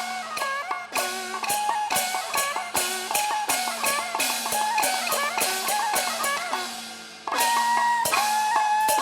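Live traditional Taiwanese ensemble music: a sliding, bending melody over a steady low drone, punctuated by rapid percussion strikes. The strikes thin out shortly before seven seconds in, and the melody comes back louder on long held notes.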